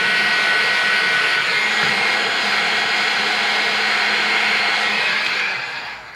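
Milwaukee electric heat gun running, its fan blowing a steady rush of air with a faint high whine as it shrinks heat-shrink tubing over a wire splice. It winds down and stops near the end.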